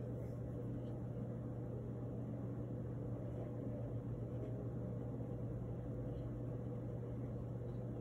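Steady low hum with a faint even hiss of room background noise.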